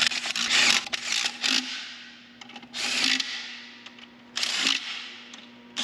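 Cordless impact driver hammering steel bolts tight, in short bursts of about half a second, four times.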